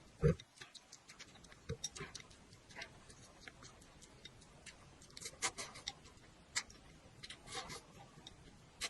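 Close-miked eating sounds: irregular wet mouth clicks and smacks while chewing, with one louder low thump about a third of a second in.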